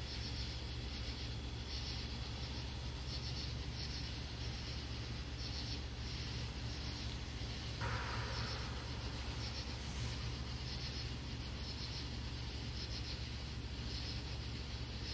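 Crickets chirping in a steady night chorus, about one chirp a second, over a steady low hum. A brief rush of noise comes about eight seconds in.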